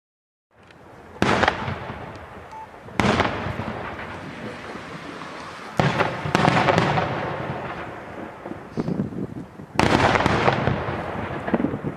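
Daytime fireworks: aerial shells bursting overhead in about five sharp, loud bangs, each followed by a long rolling echo that fades over a second or two, with smaller pops between.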